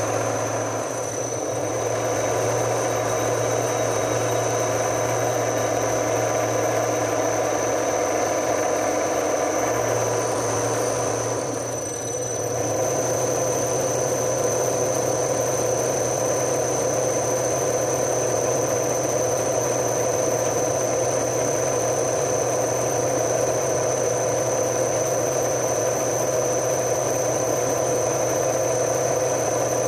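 Milling machine running, its spindle cutting a hole in a metal plate: a steady machine noise with a constant high whine. The sound dips and changes briefly about twelve seconds in, then carries on steadily.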